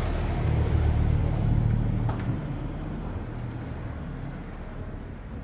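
An Audi A6 car passing close by, its low engine and tyre rumble swelling to a peak about two seconds in, then fading away.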